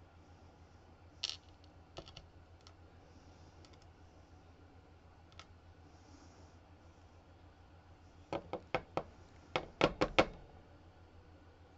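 Light clicks and taps of small metal lock parts handled with tweezers while pins are loaded into a Dom RS8 lock: a few scattered clicks, then a quick run of about eight sharper clicks near the end.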